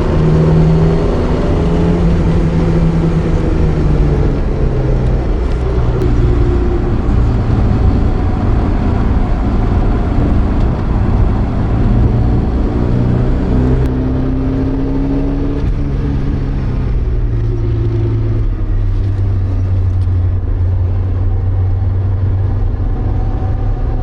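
Porsche 924's 2.0-litre four-cylinder engine under way on track, heard from inside the cabin, its pitch rising and falling with throttle and gear changes. It settles lower and steadier over the last several seconds.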